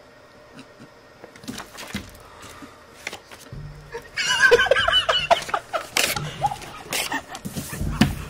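A person's high, wavering squeal of laughter starts about four seconds in, with scattered knocks and thuds around it.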